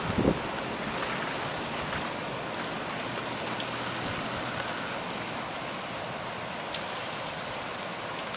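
Heavy rain pouring down steadily and splashing on the wet street and nearby surfaces, with a few brief knocks right at the start.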